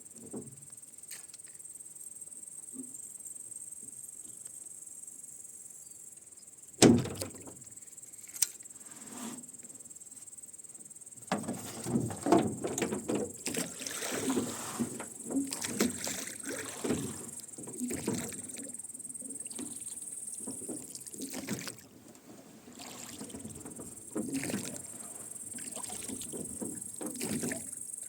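Rowing boat under way: oars splashing in the water and oarlocks creaking and knocking with each stroke, starting about a third of the way in after a single sharp knock, with crickets chirring steadily throughout.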